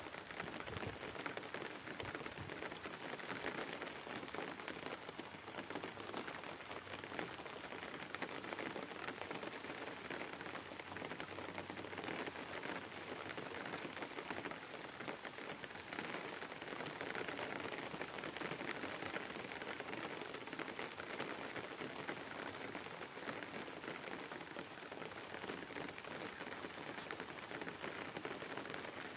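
Steady rain falling on a pond's surface and on the leafy vegetation along its bank.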